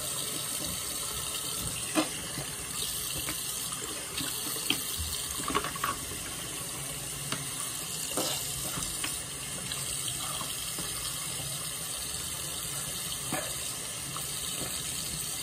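Bathroom sink tap running steadily into the basin, with a few light knocks and clicks along the way.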